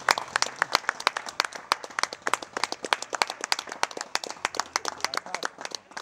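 Applause: a group of people clapping, the individual claps distinct and irregular, dying away just before the end.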